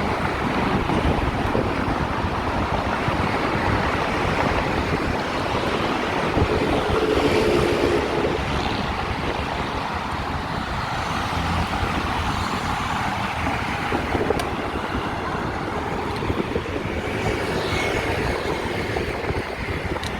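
Steady road traffic on a busy multi-lane road, mixed with wind on the microphone of a moving bicycle. One vehicle passes more loudly about seven seconds in.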